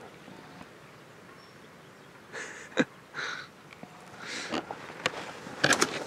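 Brush and leaves rustling with a few sharp twig snaps as someone moves through the undergrowth. It is quiet at first, then comes in short bursts through the second half, busiest near the end.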